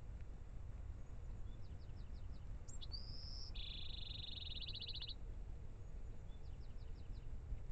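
A small songbird singing: a few quick high notes, a rising whistle, then a long buzzy trill about three and a half seconds in, with the phrase starting again near the end. A steady low rumble runs underneath.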